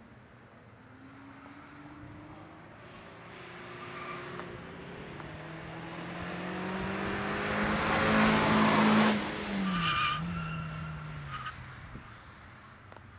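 A hatchback car's engine revs hard through the turns of a race course. It grows louder as the car approaches, peaks as it passes close about 8–9 seconds in, then drops in pitch and fades. Brief tyre squeals follow just after it passes.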